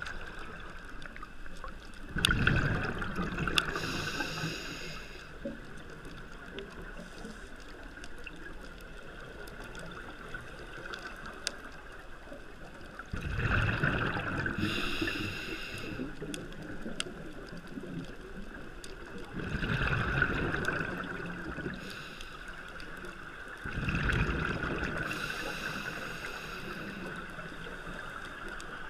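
Underwater breathing through a scuba regulator: four bursts of exhaled bubbles, each about two seconds long, with hissing inhalations through the regulator between them.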